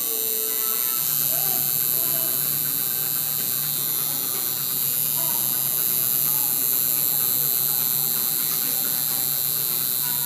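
Coil tattoo machine buzzing steadily as the needle works into the skin, with a strong high hiss over a low, slightly pulsing hum; it cuts off suddenly at the end.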